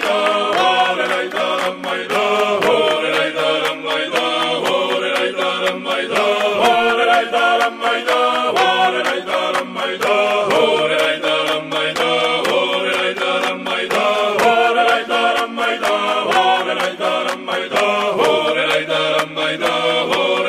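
Background music: a choir chanting in several voices at once, singing steadily throughout.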